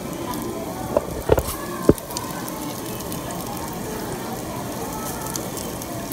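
Meat sizzling on a grill, a steady sizzle, with a few sharp clinks between one and two seconds in.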